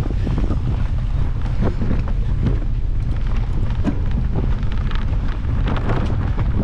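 Wind buffeting the microphone while a mountain bike is ridden over bumpy grass, with a steady low rumble and frequent small rattles and knocks from the bike.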